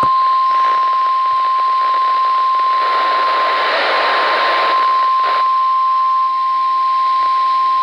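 Weather radio warning alarm tone: a single steady tone just above 1 kHz, the 1050 Hz alert used by NOAA Weather Radio to announce that a warning broadcast follows, held over radio static hiss.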